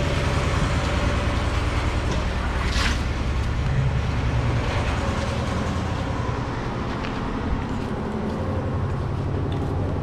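An engine running steadily, with a low, evenly pulsing rumble.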